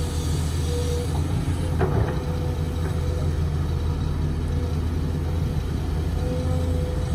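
Matador ME210LC excavator's diesel engine running steadily under load while the bucket digs into a soil pile. A short whine comes about a second in and again near the end, and there is a brief knock or scrape about two seconds in.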